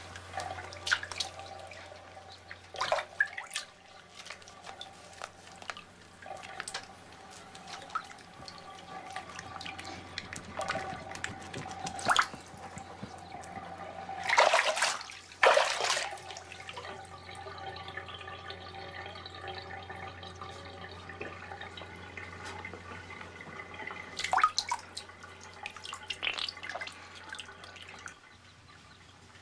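Bathwater splashing and dripping in a tub as a body is soaped and rinsed, with two loud splashes a little past the middle, over a steady faint hum.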